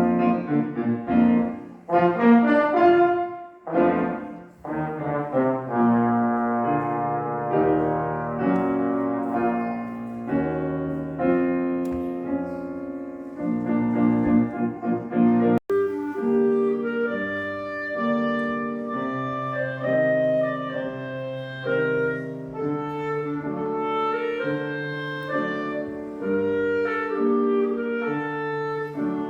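Live classical music: a wind instrument playing a melody with piano accompaniment. About halfway through the recording cuts abruptly to another passage, again a wind instrument with piano.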